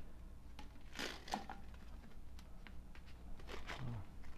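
Faint handling sounds of parts and packaging being moved around in a box: a few light clicks and short rustles of packaging.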